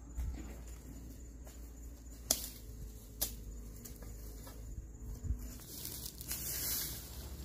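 A long-handled hoe scraping and raking dry grass and straw across dirt ground, the straw rustling, with a few sharp knocks as the blade hits the ground.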